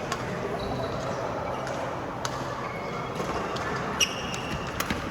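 Badminton being played on an indoor court: a few sharp hits of rackets on the shuttlecock, with short high squeaks of shoes on the court floor, over steady hall noise.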